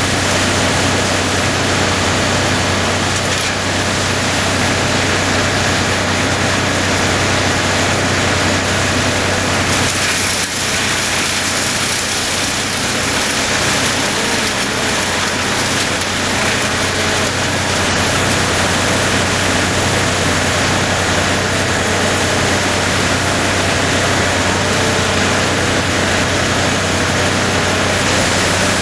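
Wood chipper running steadily: a constant low engine hum under a loud, even rushing noise that does not let up.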